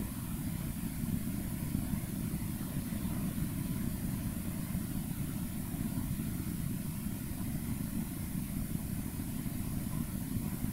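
Steady low rumble with a faint high hiss, unchanging throughout: background room noise.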